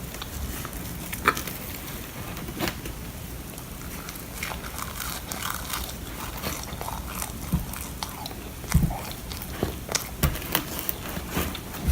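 A person biting and chewing freshly baked milk bread, with scattered small crackles and a few soft low thumps.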